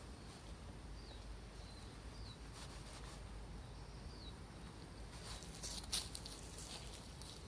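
A few faint, short high chirps, spaced out over the first four seconds, then a spell of rustling with a sharp click about six seconds in.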